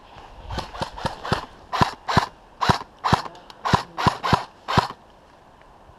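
Airsoft gun firing single shots, about a dozen sharp snaps over four seconds at an uneven pace.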